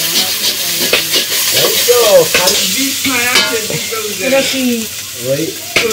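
Metal spatula stirring and scraping mashed taki fish with onion, garlic and green chilli as it fries in a stainless steel karahi, sizzling steadily, with a sharp clack of the spatula on the pan now and then. The water has cooked off and the dry fry is almost done.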